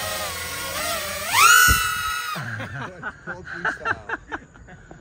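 FPV drone's brushless motors whining, the pitch climbing steeply about a second in as the throttle goes up, holding high, then cutting off abruptly around halfway, leaving quieter, uneven sounds.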